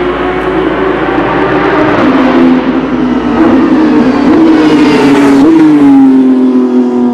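Porsche 992 GT3 Cup race car's 4.0-litre flat-six on a straight-pipe exhaust, running hard down the straight with a gear change about two seconds in. It grows louder as it nears and passes close by, its pitch dropping as it goes. The tyres hiss through the spray off the wet track as it passes.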